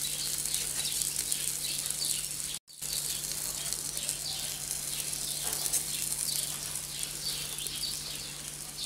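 Pork burger patty sizzling over a charcoal fire, its fat crackling and spitting, with a steady low hum underneath. The sound cuts out for a moment about two and a half seconds in.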